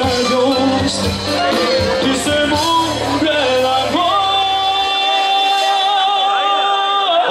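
Cuban salsa band playing live with singers. About four seconds in, a long note is held until near the end, and the bass and drums drop out under it about a second later.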